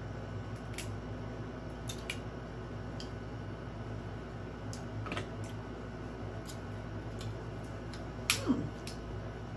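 Faint, scattered clicks and small cracks of a crab leg shell being picked apart by hand, over a steady low hum. A brief voiced sound with a falling pitch comes near the end.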